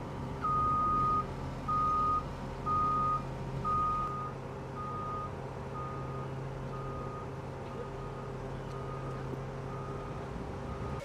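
Reverse warning alarm of a military all-terrain forklift backing up. It beeps about once a second, with the first four beeps loud and the rest fainter as it draws away, over the steady hum of its running engine.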